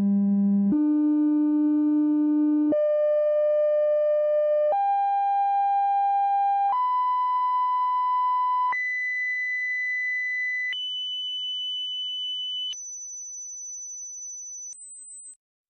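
Electronic alert tones stepping up in pitch: a run of steady notes, each held about two seconds, climbing from a low buzzy tone to a thin, very high whistle. They grow quieter as they rise, and a brief top note cuts off shortly before the end.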